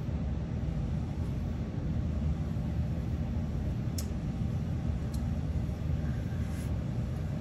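Steady low rumble of background noise, with a faint click about four seconds in.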